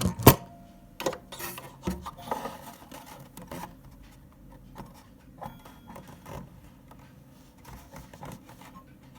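Irregular clicks, knocks and rubbing from a chiming clock movement and its hammers being handled, with one sharp knock just after the start.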